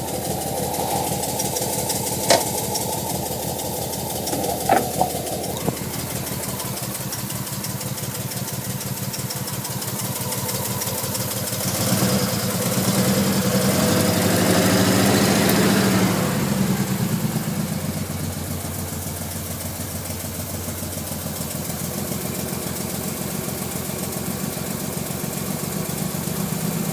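Nissan Skyline R33's RB25DE non-turbo straight-six running rough with a misfire. It rises in revs and gets louder about twelve seconds in, then falls back to idle about five seconds later. A few sharp clicks sound in the first six seconds.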